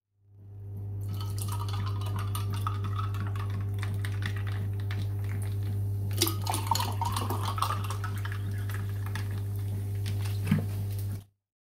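Carbonated drink poured over ice into tall glasses, fizzing and crackling as it foams. There are sharp clinks of glass about six seconds in and again near the end, over a steady low hum.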